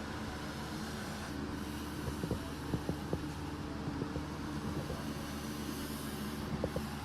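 A steady low mechanical hum, with scattered light clicks and knocks.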